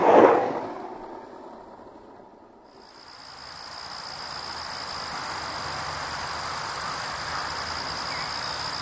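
A louder sound at the very start dies away over about two seconds. Then, about three seconds in, insects begin trilling: a steady, high, fast-pulsing chirr at two pitches that keeps on.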